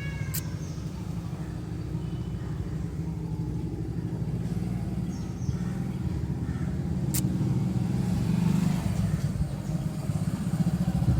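Tata Nexon engine running steadily at a standstill, swelling slightly near the end, with two sharp clicks, one about a second in and one about seven seconds in.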